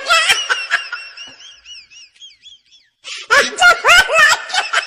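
A high-pitched, wavering squeal that wobbles up and down and fades out over the first three seconds, then a loud burst of shrill, voice-like cries about three seconds in.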